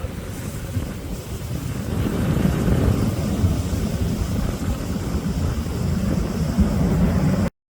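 Low rumble of the Airbus A350-900's Rolls-Royce Trent XWB jet engines, growing louder about two seconds in and cutting off abruptly near the end.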